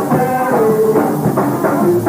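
Band music with drums and percussion under pitched melody lines: a rock-band arrangement built on a fusion of Congo capixaba and maracatu rhythms.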